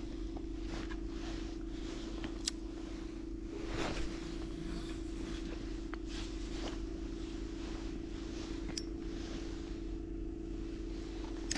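A steady low mechanical hum, like a motor or engine running nearby, with a couple of faint clicks about two and a half seconds in and near nine seconds.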